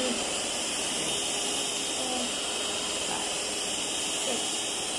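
Stand mixer motor running steadily on low speed, its wire whisk beating cream and cream-cheese icing in a steel bowl.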